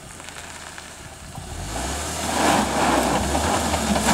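Suzuki Grand Vitara SUV's engine running at low revs, growing louder from about one and a half seconds in as a rough rushing noise builds over it while the car works over rutted dirt.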